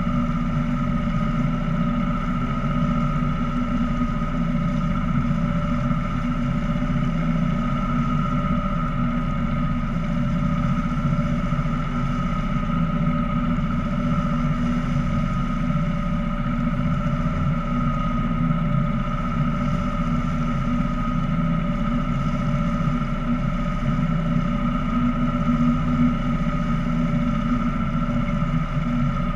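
A small boat's motor running steadily under way, heard from on board: a constant low drone with a steady higher whine on top.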